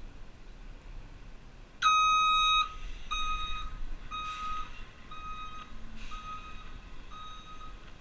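Rear-loader garbage truck's backup alarm beeping as the truck reverses: a long, loud first beep about two seconds in, then shorter beeps about once a second, over a low engine rumble.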